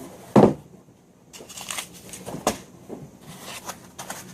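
A single thump about half a second in, then cardboard packaging rustling, scraping and clicking as the box of a laptop cooler is handled.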